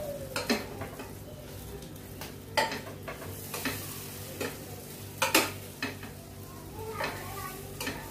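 A spatula and a knife scrape and tap against a flat pan as an egg omelette is turned and shaped, with a light sizzle of frying underneath. There are about seven sharp knocks or scrapes; the loudest comes a little after the middle.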